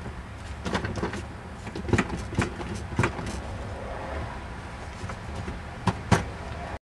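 Irregular plastic knocks and clicks as a rear-facing infant car seat is pushed and tugged against the car's seat belt, over a low steady hum. The sound cuts off abruptly near the end.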